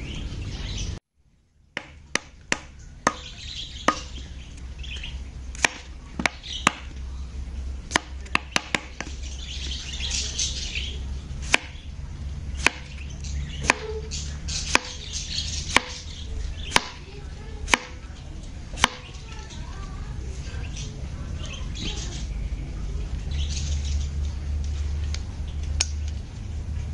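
A kitchen knife slicing a cucumber on a bamboo cutting board: about twenty sharp knocks of the blade hitting the board at an uneven pace, stopping about two-thirds of the way through. Birds chirp in the background throughout.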